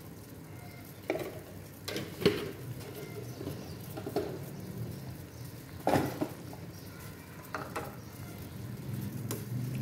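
Kitchen clatter: about half a dozen sharp clinks and knocks of utensils and seasoning containers handled around a soup pot on the stove, over a low steady hum.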